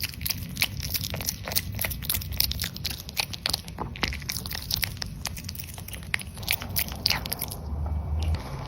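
A dog chewing crunchy food: quick, irregular crunches and bites, thinning out near the end.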